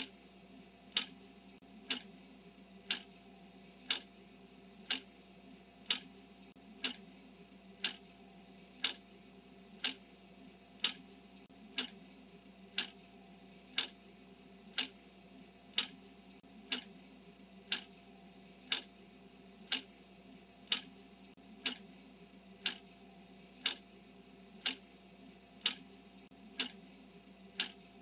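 Clock ticking steadily, one sharp tick a second, marking the seconds of a countdown timer, over a faint steady hum.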